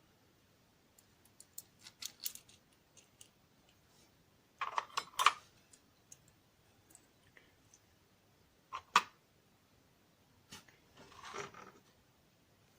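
Small metal parts and tools clicking and clinking as an American 1100 padlock core is taken apart with a follower: scattered light clicks, with sharper clinks about five and nine seconds in.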